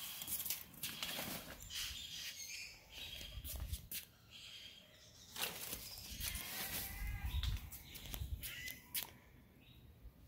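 Outdoor birds chirping in short calls, mixed with scattered rustles and knocks and a low rumble from the handheld camera being moved about.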